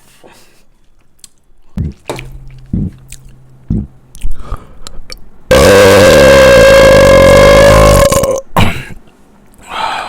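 A person belching one long, very loud burp of about three seconds, holding a steady pitch, after a few short low thumps.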